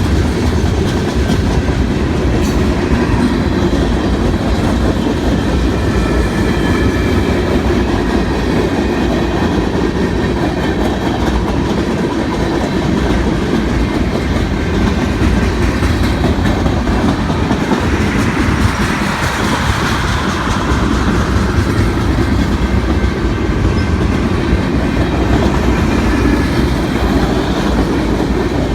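Freight cars of a manifest freight train rolling past: a steady, loud rumble of steel wheels on the rails with clacking over the joints. About eighteen seconds in, a brief band of higher-pitched noise rises and fades.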